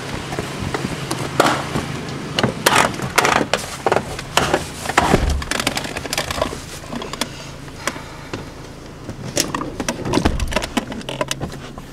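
Irregular knocks, rustles and clunks of a phone being handled while a person climbs into a vehicle out of the rain, with a couple of heavier thuds. A low steady hum comes in near the end.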